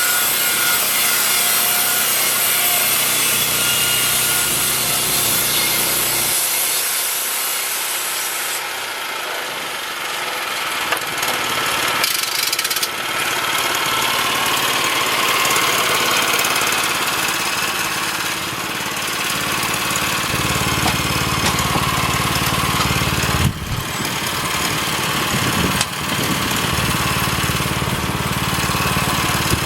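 Woodland Mills band sawmill cutting a pine log, the blade sawing through the wood over the steady running of its gas engine. About nine seconds in the high sawing noise eases, and from about twenty seconds the engine's low hum comes up louder.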